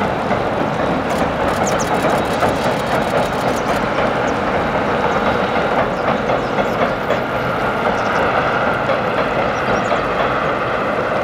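Steam-hauled passenger train rumbling steadily across a steel girder railway bridge, with some clicking of wheels on the rails.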